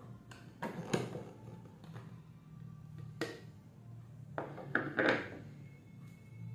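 The plastic jar of a Philips HR2042 blender being gripped, twisted and lifted off its motor base: a few separate knocks and clunks of plastic on plastic, the loudest about five seconds in, over a low steady hum.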